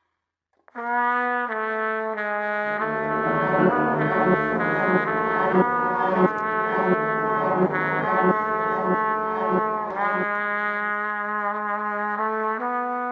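Instrumental music with a brassy tone, starting about a second in: sustained notes over a lower held line, with a stretch of repeated short notes in the middle, ending on held notes.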